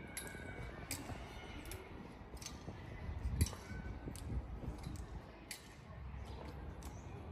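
Outdoor ambience: a low rumble with scattered sharp light clicks, a dozen or so spread unevenly through it.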